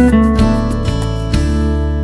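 Background music led by strummed and plucked acoustic guitar over a steady bass.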